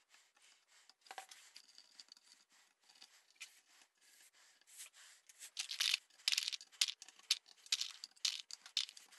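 Faint handling sounds of gluing up a dowel joint: glue squeezed from a bottle and dabbed into dowel holes with a small stick, then from about halfway in, louder sharp clicks and rattles as wooden dowels are picked out of a plastic tub and pushed into the holes.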